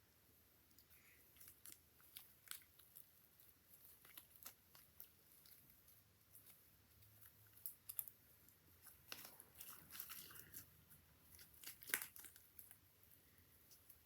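Faint sticky clicks and crackles of beaded slime being squeezed and stretched by hand, with a few louder pops near the end.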